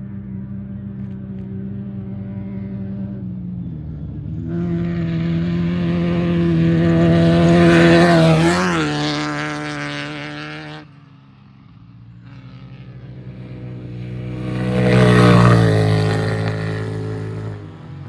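Off-road race vehicles passing at speed, one after another, over a steady engine hum. The first engine grows loud, drops in pitch as it goes by and cuts off suddenly about eleven seconds in. A second one builds to a loud pass near the end.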